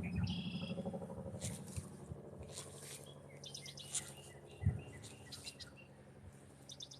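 Birds chirping in short, quick trills, a few separate bursts. One low thump about two-thirds of the way through.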